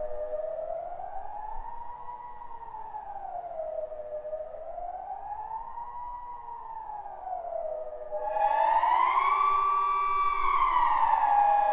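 A siren wailing, its pitch gliding slowly up and down about once every four seconds. About eight seconds in, a louder and brighter siren tone takes over, pausing at the high and low ends of each sweep.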